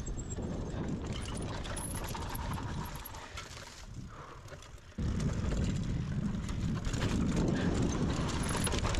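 Mountain bike rolling over a rough trail: tyres rumbling and the bike rattling over bumps, with wind on the microphone. The sound jumps louder abruptly about halfway through.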